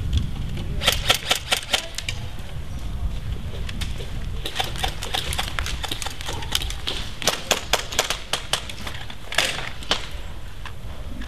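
Airsoft guns firing in several short bursts, a rapid rattle of sharp clicks that comes and goes, about a second at a time.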